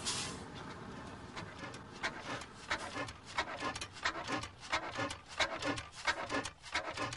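1895 Hornsby-Akroyd paraffin oil engine being started and turning over slowly. A steady hiss gives way, about a second and a half in, to an irregular run of chuffs and mechanical knocks, a few a second.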